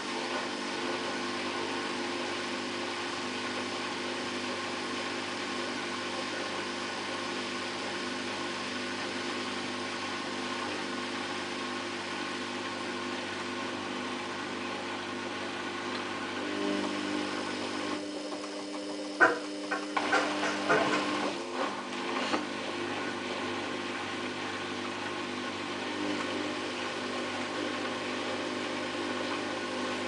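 Samsung WF8804RPA front-loading washing machine turning its drum slowly, with a steady motor hum as the wet laundry tumbles. A little past halfway the motor hum stops for a couple of seconds, followed by a few knocks as the drum starts turning again.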